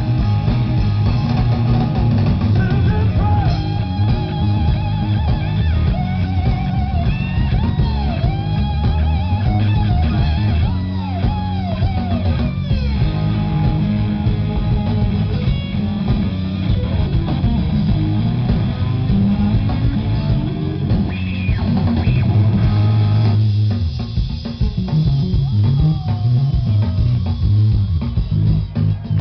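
A live rock band playing electric guitars, bass guitar and drum kit, heard loud from within the audience. The upper range thins out about three-quarters of the way through.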